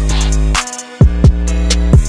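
Background music with a beat: a held bass line with two deep drum hits, one about halfway through and one near the end.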